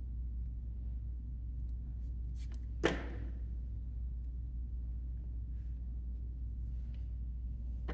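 A steady low hum, with a few faint ticks and then one sharp tap about three seconds in.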